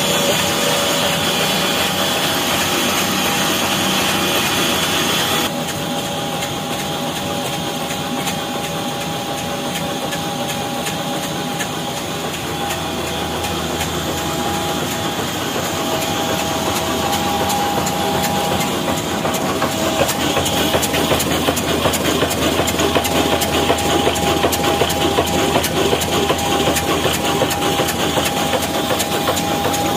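18 HP old stationary diesel engine running steadily, with a fast regular knocking beat, driving a mini flour mill by a flat belt. The sound changes abruptly about five seconds in and grows louder toward the end.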